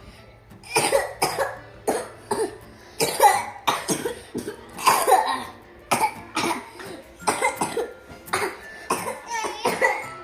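A person coughing over and over in a long fit, about two coughs a second in clusters of two or three.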